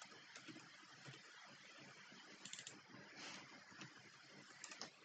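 Near silence: room tone with a few faint computer-keyboard clicks from typing.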